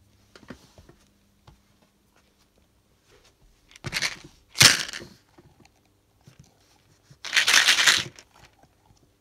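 Close-up handling noise from a plastic gum bottle and a rubber shark hand puppet knocking and rubbing together: scattered small clicks, two short loud rushes of noise about four seconds in, and a longer one near the end.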